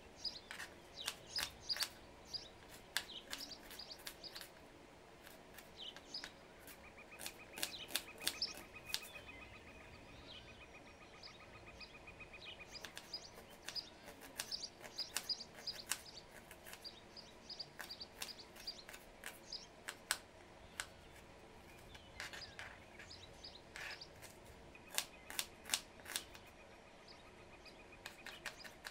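Knife chopping a red onion on a cutting board: quick runs of sharp taps with pauses between them. Birds chirp and trill faintly in the background.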